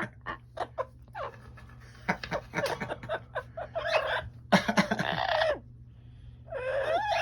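Amazon parrot vocalising: a run of short clicks and squawky chirps, a harsh raspy squawk about halfway through, and a pitched, wavering call starting near the end.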